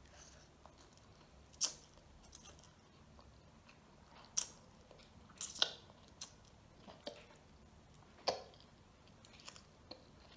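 A child slurping and chewing ramen noodles: short, sharp mouth sounds spread through, the loudest about one and a half, four and a half, five and a half and eight seconds in.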